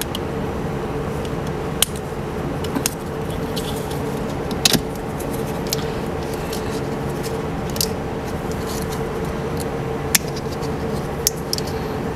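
Sharp plastic clicks and snaps from hands prying a plastic cover off a wiring connector and working the corrugated plastic wire loom on a suspension harness, over a steady mechanical hum.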